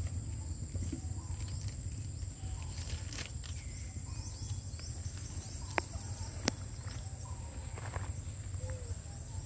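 Outdoor ground-level ambience around foraging macaques: a steady low rumble, a thin steady high-pitched whine, a few faint short calls, and two sharp clicks a little over half a second apart about six seconds in.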